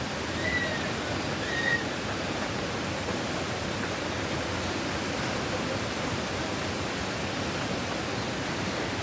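Steady rushing of strong wind through trees as a hurricane builds up, with two short high chirps about half a second and a second and a half in.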